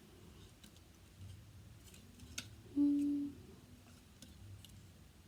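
Faint scattered clicks of plastic toy parts being turned and snapped into place, with a brief hummed note about three seconds in.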